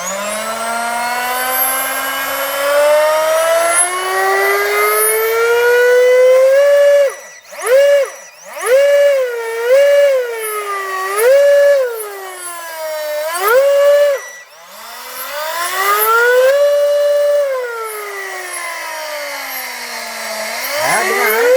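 Feilun FT012 RC boat's brushless motor and ESC whining as the throttle is worked with the hull out of water: a high, F1-like whine climbs slowly for several seconds, then swells up and down in quick blips, holds a high note, glides down and climbs again near the end.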